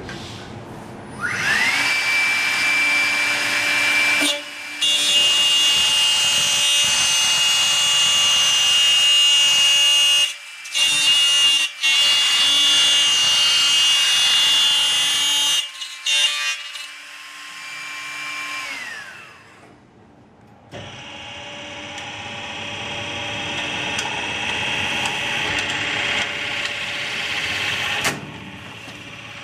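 Copy-router spindle motor spinning up to a steady high whine, then its end mill cutting into a window profile with a loud screech and a couple of brief breaks; the motor winds down about two-thirds of the way through. A second machining run follows, its cutting noise growing louder before stopping near the end.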